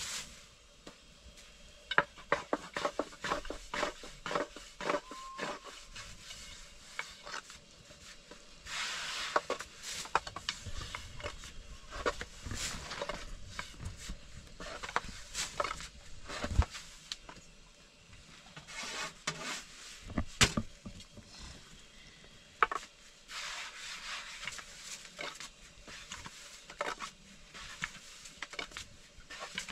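Thin wooden rolling pin rolling and knocking on a round wooden board as flatbread dough is rolled out: runs of sharp wooden clacks with stretches of dough rubbing and swishing under the pin.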